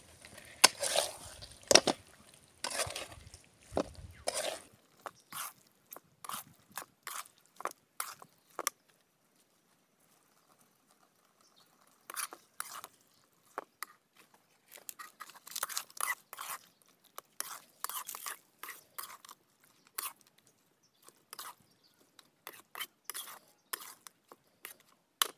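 Metal spatula scraping and clicking against a steel kadai as thick chicken curry is stirred, in irregular runs of strokes, with a few louder knocks in the first two seconds and a pause of a few seconds before the middle.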